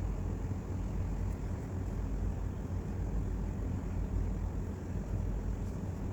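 Steady low rumble of background noise, even throughout, with no speech.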